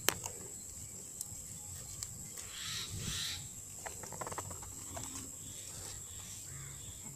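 Quiet outdoor ambience with soft rustling and faint crackles of leafy weeds as leaves are plucked from the stems by hand. There is a sharp click at the start and a faint distant animal call about three seconds in.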